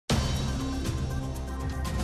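Instrumental theme music for a TV programme's opening titles. It starts abruptly, with sustained low notes and a steady beat.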